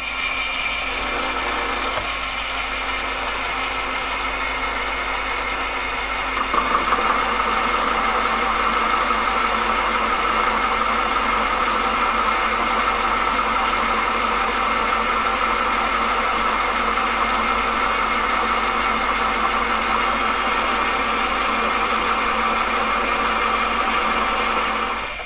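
AMA 714B mini lathe running with a solid titanium bar spinning in the chuck. About six seconds in the tool starts taking a 0.1 mm cut and the sound grows louder and brighter, a steady cutting note that shows the tool is cleanly cutting the titanium rather than rubbing it. It dies down just before the end.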